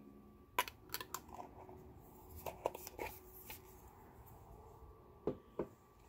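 Small glass jars and a metal screw-on lid being handled: a scatter of light clicks and knocks in the first half, then two sharper knocks close together near the end, as the jars are closed and set down.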